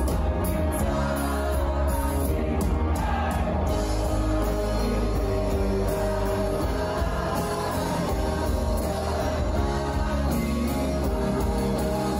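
Live band playing a pop-rock song with singing, over a strong, steady bass.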